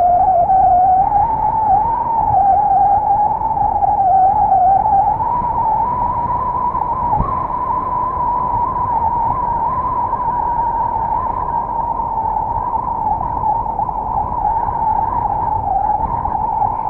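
High whistle from the turbocharger of a 060-DA (LDE2100) diesel-electric locomotive's Sulzer engine under load: a single wavering tone that rises a little in pitch about five seconds in and then holds. It sits over steady low road noise from the car.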